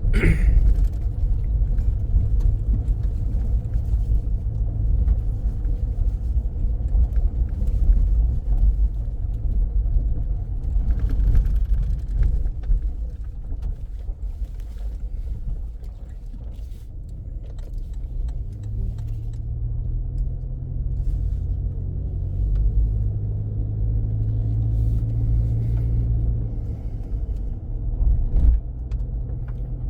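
Car driving, with a steady low rumble of engine and road noise. A steadier engine hum comes in from about two-thirds of the way through, with scattered light knocks.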